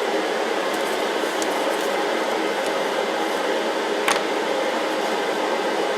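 Steady machine noise, like a fan running, with a single sharp click about four seconds in.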